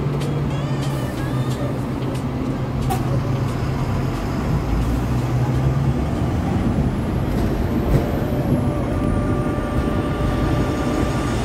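Hong Kong double-decker electric tram running: a steady rumble and rattle, with a faint high whine that rises and falls in the second half.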